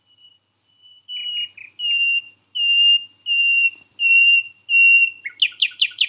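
Common nightingale singing: a run of long, pure whistled notes on one pitch, each louder than the last, breaking about five seconds in into a fast rattle of sharp, sweeping notes.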